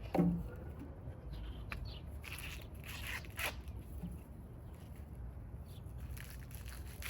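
Corn husks being torn and rustled by hand as ears are husked: short, scattered rips and crackles, the strongest right at the start, over a low steady hum.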